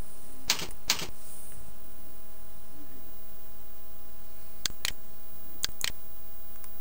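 A few computer keyboard and mouse clicks: a couple of keystrokes about a second in, then two quick pairs of mouse clicks near the end, over a steady electrical hum.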